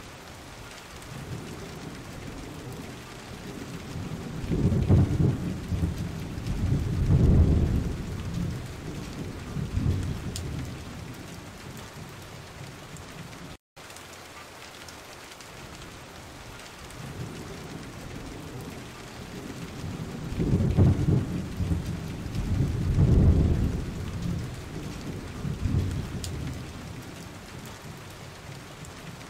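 Steady heavy rain with two long rolls of thunder. The first builds about four seconds in and dies away by about ten seconds. The second comes the same way about twenty seconds in. The sound drops out for a split second about halfway through.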